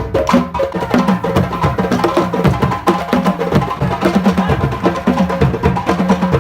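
Loud, fast percussion-driven music: drums and a sharp wood-block-like clicking beat over a line of low pitched notes.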